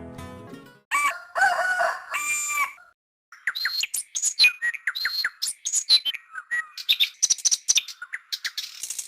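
A rooster crows about a second in, then many small birds chirp rapidly. Guitar music fades out at the very start.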